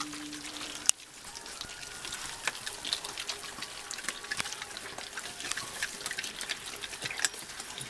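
Scottish deerhound puppies chewing raw chicken on the bone: wet chewing and smacking with many small crunching clicks.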